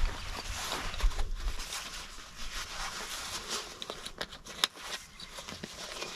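Rustling with scattered light clicks and knocks, and a low rumble in about the first second and a half.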